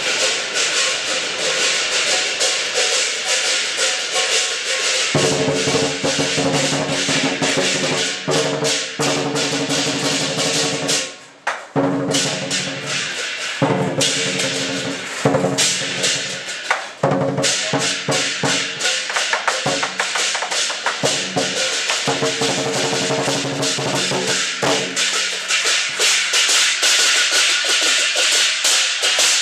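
Chinese lion dance percussion: a drum, crashing hand cymbals and a gong beating a dense, fast rhythm, with a short break about eleven seconds in.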